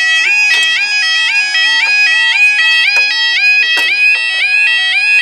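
Level crossing warning alarm sounding continuously: a piercing, warbling tone that steps up in pitch about three times a second, the signal that the barriers are down and a train is due. A few brief knocks sound over it, the loudest a little before the end.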